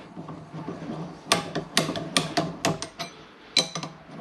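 Sharp metallic clinks and taps, about eight in a little over two seconds, each with a short ring, as a steel pulley is worked off an electric motor's shaft.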